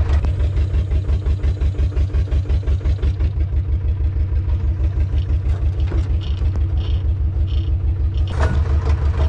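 The Kaiser X4 spider excavator's diesel engine running steadily at idle, a regular low chug. There is one short knock about eight seconds in.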